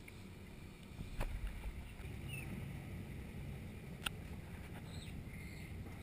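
Faint, steady low rumble and hiss of outdoor background noise, slightly louder after about a second, with two sharp clicks about three seconds apart.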